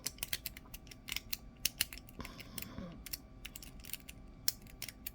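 Lock pick working the pins of a small brass pin-tumbler padlock under tension: sharp, irregular metallic clicks and ticks, several a second, as the pins are picked.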